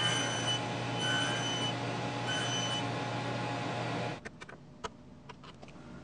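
Table saw running steadily with a low hum. It cuts off about four seconds in, followed by a few light clicks and taps.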